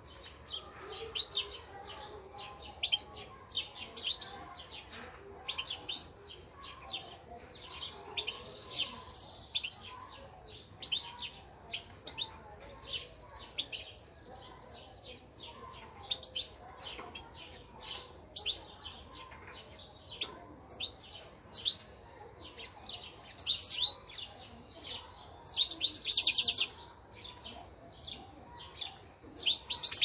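Small caged songbirds chirping, with short sharp calls coming several times a second. A fast trill comes about 26 seconds in and another right at the end.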